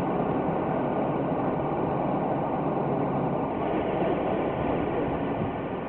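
Steady drone with a faint constant high whine from a parked Ryanair Boeing 737-800, its auxiliary power unit running during the turnaround at the stand.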